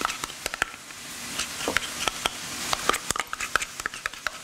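Greek yogurt being scraped out of a plastic tub into a glass bowl: a string of quick, irregular clicks and taps of the tub against the bowl.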